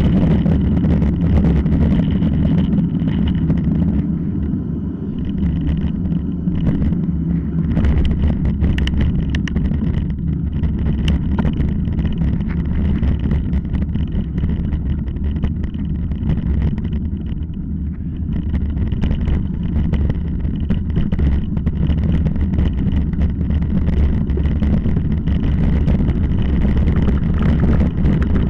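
Mountain bike riding over a loose, stony dirt trail, heard through an on-board action camera: a steady low rumble of wind and tyre noise on the microphone, with constant irregular clicks and rattles as the bike runs over gravel.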